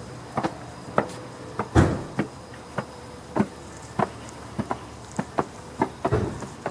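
Footsteps climbing stone stairs: heeled shoes clicking on each step, roughly every half second, with a heavier thud about two seconds in and again near the end.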